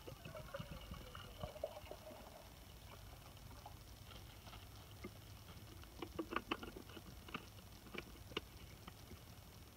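Water pouring from a canteen into a metal cup through the first two seconds or so, then a few light clicks and clinks as the canteen and cup are handled, the clearest cluster about six seconds in and more around eight seconds.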